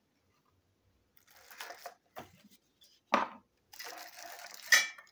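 Clear plastic packaging crinkling and rustling as it is handled, in irregular bursts starting about a second in, with a sharp crackle about three seconds in and the loudest crinkle near the end.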